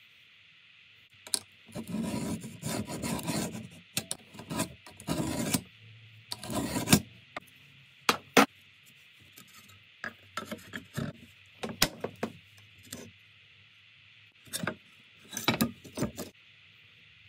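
Several scraping strokes as the pointed steel end of a T-handle socket wrench is drawn along a metal ruler to score a white panel. Then sharp clicks and knocks as the metal ruler is lifted away and the scored panel is broken and handled.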